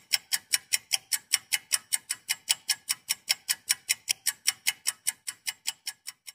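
Rapid, even ticking, about five or six sharp ticks a second, growing fainter and more spaced out near the end.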